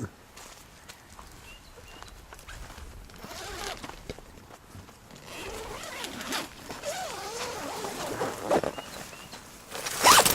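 A tent zipper being drawn open in several rasping pulls, the loudest and sharpest pull coming near the end.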